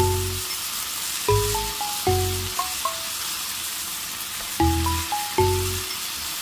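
Sweet potato stems sizzling as they are stir-fried in a pan, a steady hiss, with stirring in the pan. Background music of short plucked notes and low bass beats plays over it and is the loudest sound.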